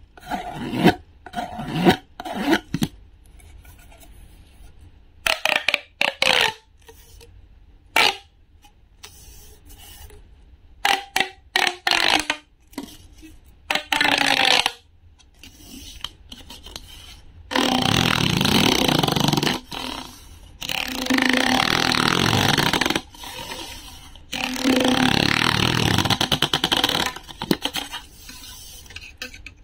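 Green plastic pop tube being handled: a wooden toy knife scraped and rubbed over its ribbed plastic, with short scrapes and clicks. Then the tube is pulled out, its ribs snapping open in three long runs of rapid clicking, each about two seconds, in the second half.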